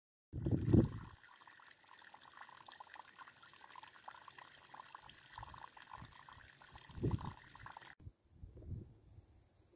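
Water trickling in a steady hiss, with a low thump near the start and another about seven seconds in. Near the end it cuts abruptly to a quieter outdoor ambience with low rumbles.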